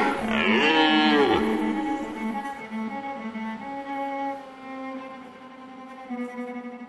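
Bowed cello holding long low notes that grow steadily quieter, after a swooping slide up and back down in pitch about a second in.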